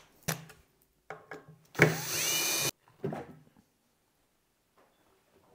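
Cordless drill/driver runs once for about a second, spinning up with a rising whine as it backs a screw out of a battery case lid. A few light clicks and knocks of handling come before and after it.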